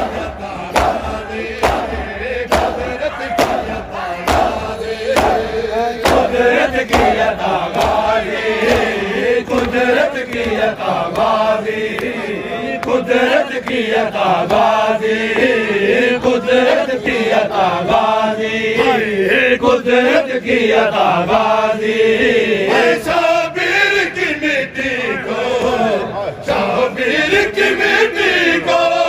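A crowd of men chanting a noha, a Shia lament, in unison, with regular sharp slaps of hands beating on chests (matam) keeping time.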